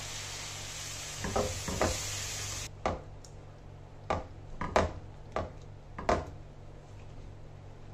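A steady hiss from the pan of roasted semolina, ghee and sugar just after water has gone in, cut off suddenly about two and a half seconds in. Then a metal utensil knocks against the pan about eight times at irregular intervals as the halwa is stirred.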